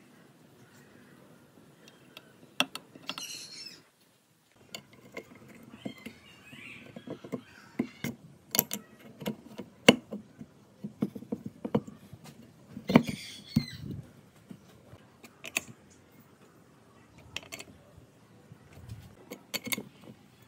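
Scattered clicks and knocks of tools and metal parts being handled during workshop restoration work on a small air compressor, with a bird chirping around three seconds in.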